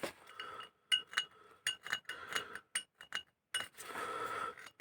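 Light metallic clinks and taps of small steel engine parts being handled and set against each other, each click ringing briefly, with a short stretch of rubbing or scraping near the end.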